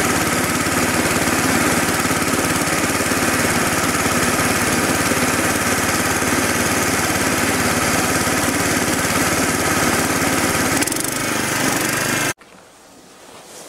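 Small petrol engine of a MARKO tiller running steadily, driving a belt-driven snow blower attachment. About twelve seconds in, the sound cuts off abruptly.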